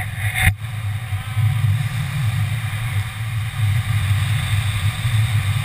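Wind buffeting the camera microphone during a parachute descent, a steady low rumble, with one short knock about half a second in.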